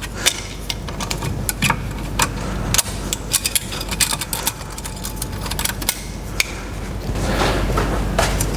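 Light metallic clicks and taps, many in quick irregular succession, as the spring retaining clip that holds the brake pads is worked off a rear brake caliper, with a rougher scraping noise near the end.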